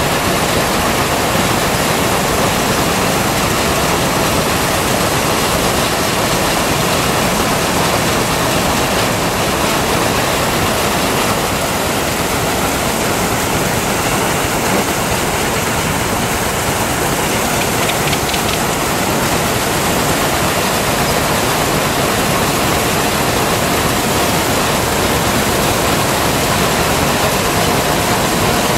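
Threshing machine running steadily under load as sheaves of grain are fed into it, belt-driven from a steam traction engine. A loud, even mechanical noise with no distinct beat.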